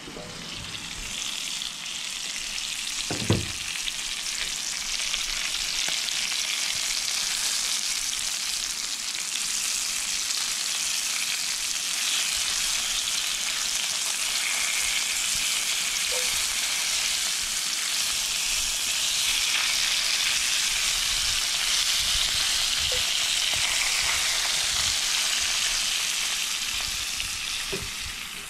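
Smallmouth bass fillets frying in a pan on a barbecue grill, sizzling steadily, with one sharp knock about three seconds in.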